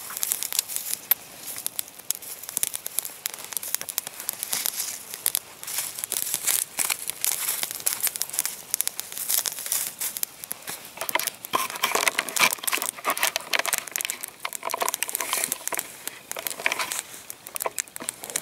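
Small campfire of dry fir twigs burning, crackling with dense, irregular pops. More sticks are laid onto it partway through, adding some rustling and knocking of wood.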